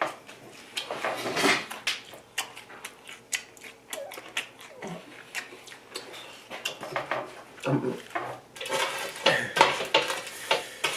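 Eating sounds at a table: scattered clicks and clatter of plates and cutlery, with short noisy handling sounds between them.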